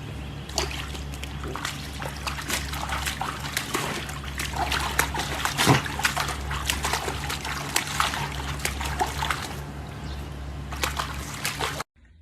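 Water splashing and trickling in many small irregular splashes over a steady low hum.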